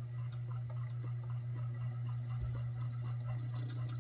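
Ceiling fan motor humming steadily on its low setting after being given a push by hand to get it going, the humming a symptom of its failing capacitor.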